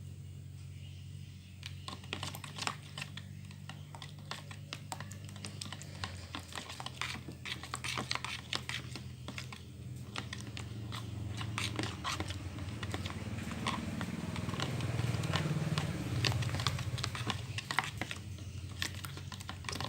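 Spoon or stirrer working slime mixture of glue, water and activator solution in a container, making a dense run of quick clicks, taps and sticky sounds that grow busier and louder in the second half as the mixture starts to thicken. A low steady hum runs underneath.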